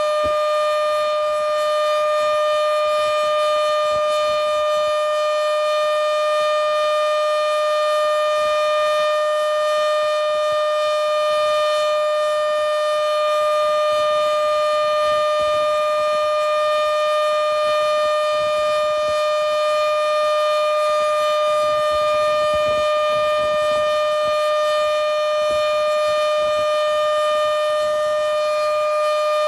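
Modified Federal Signal Model 7B outdoor warning siren sounding the steady alert signal up close: one loud, unbroken high tone with overtones, holding its pitch and level throughout.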